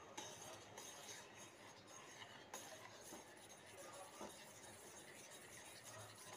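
Faint clinks and scraping of a metal spoon stirring milk in a steel saucepan, with a few light knocks against the pan.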